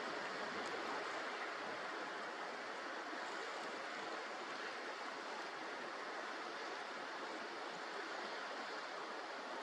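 Steady rushing wash of sea waves, an even noise with no distinct calls or impacts.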